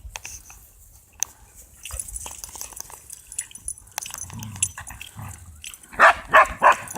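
Dogs barking: a quick run of about four loud barks near the end, after a few seconds of faint clicks and low rumble.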